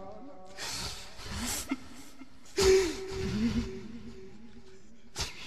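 A male Quran reciter drawing two loud breaths close to the microphone, about a second in and again near three seconds, followed by a short click near the end.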